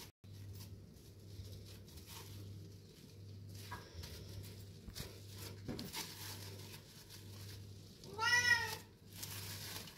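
A house cat meows once, a single call that rises and falls in pitch, lasting under a second, near the end. Under it run faint rustles and a low steady hum.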